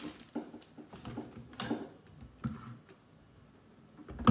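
Clear plastic wrapping crinkling, with small clicks and light knocks of plastic blender parts being handled, in short separate bursts.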